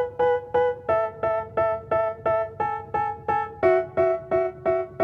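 Background music: an electric piano playing short repeated chords, about three a second, the chord changing twice.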